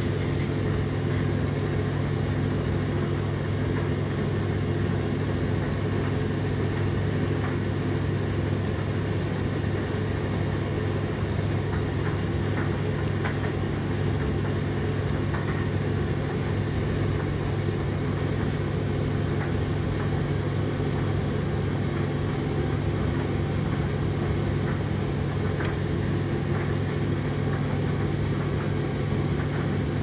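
Indesit IDC8T3 condenser tumble dryer running: a steady motor hum from the turning drum and fans, with now and then a faint tick.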